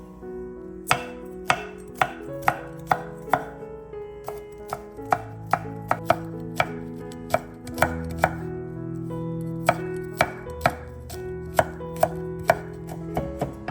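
A knife chopping on a cutting board with sharp knocks in quick runs of about two a second, with brief pauses between runs, over soft background music.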